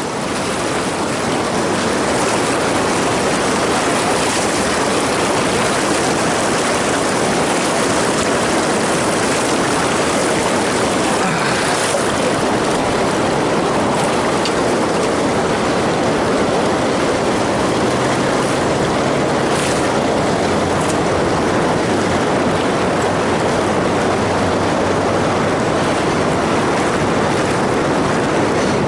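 Fast river current rushing steadily through choppy rapids below a dam, a loud continuous wash of water close to the microphone.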